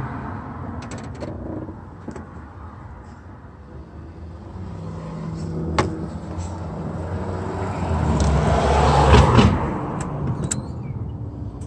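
A motor vehicle passing by: a low rumble that swells to its loudest about nine seconds in and then fades, with a single sharp click about six seconds in.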